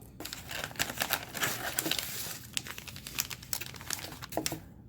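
Packaging crinkling and rustling as items are handled and unwrapped by hand, with irregular crisp crackles, dying away near the end.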